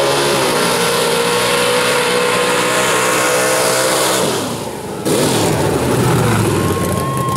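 Mud-bog pickup truck's engine held at high revs as it churns through the mud pit, the pitch steady, then dropping off about four seconds in. Loud engine noise starts again about a second later.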